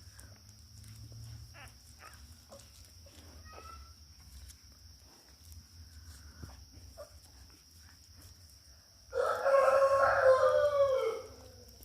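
One loud, drawn-out animal call about two seconds long near the end, falling in pitch as it ends. Fainter short calls come before it.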